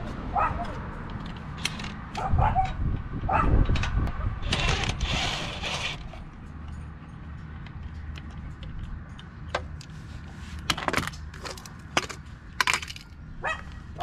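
A dog barks a few times in the first few seconds, followed by a short burst of noise about five seconds in. Then come scattered sharp metallic clicks and clinks as lug nuts and a cordless impact wrench are handled at a car wheel.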